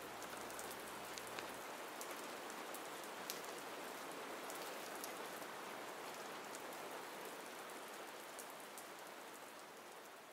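Steady rain falling: an even hiss with scattered sharp drop ticks, fading out near the end.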